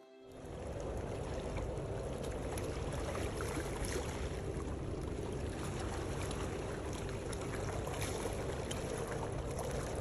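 Steady rush of sea water washing on the coast, with faint crackles, fading in within the first second.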